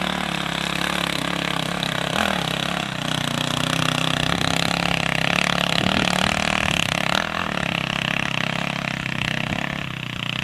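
Dirt bike engine running steadily, its revs rising and falling a little.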